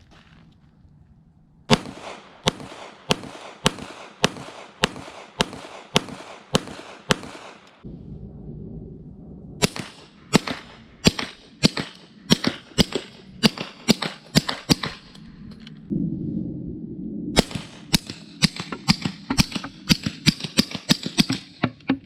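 Three strings of about ten 9mm pistol shots each from a Shadow Systems MR920: the first unsuppressed with 115-grain ammunition, the second through a Gemtech Lunar 9 suppressor in its long configuration with the same ammunition, the third suppressed with 147-grain subsonic ammunition and fired fastest.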